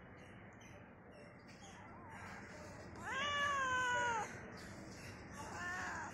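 Domestic cat meowing: one long, loud meow about three seconds in that rises quickly and then falls slowly, and a shorter, fainter meow near the end.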